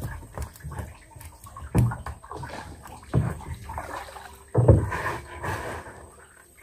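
Water sloshing and splashing, with three heavier sloshes about a second and a half apart, as a cast net is worked in the river.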